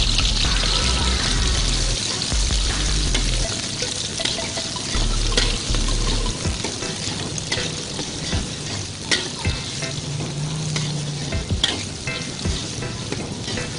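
Bilimbi, chilies, shallots and garlic sizzling in hot oil in a wok, stirred with a metal spatula that clicks and scrapes against the pan now and then.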